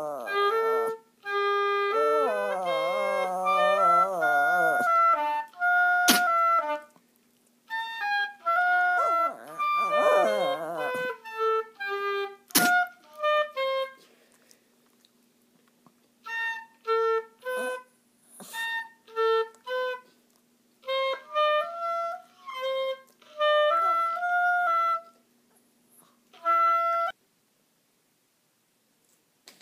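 Oboe playing held notes and short phrases that stop and start with gaps between them. In the first half a dog howls along with a wavering, sliding pitch, and there are two sharp clicks about six seconds apart.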